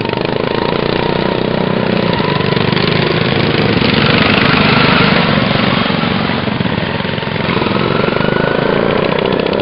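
Racing lawn mower engines running loud and continuously.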